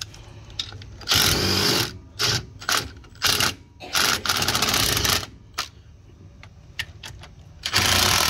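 Cordless impact driver hammering in six short runs, with pauses between, as it works loose the 15 mm control-arm bolts on the steering knuckle.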